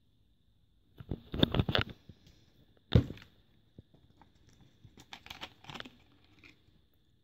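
Crackling, rustling handling noise in two bursts, with one sharp knock about three seconds in, over a faint steady high whine.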